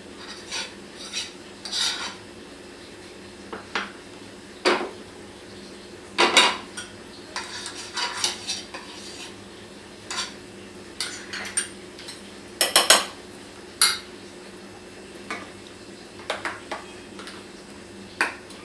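A utensil scraping and clinking against a nonstick pan in short, irregular bursts as a lump of butter is rubbed over its hot surface, with a few louder knocks about six and thirteen seconds in.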